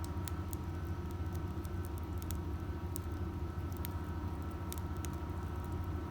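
Wood fire burning in a small solo fire pit, crackling with sharp irregular pops over a steady low rumble.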